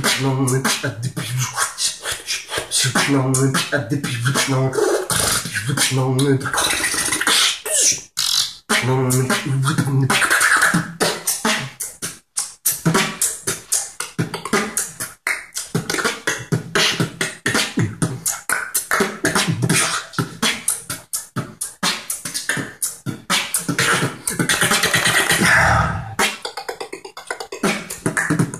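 Human beatboxing: a fast, continuous run of mouth-made kick, snare and hi-hat sounds, with a low hummed bass line underneath in stretches during the first ten seconds.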